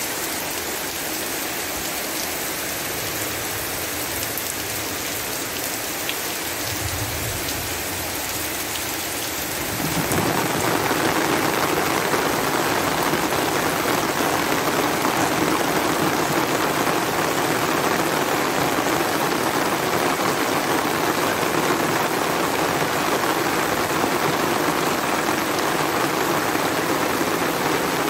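Heavy rain pouring steadily onto flooded ground, growing louder and fuller about ten seconds in.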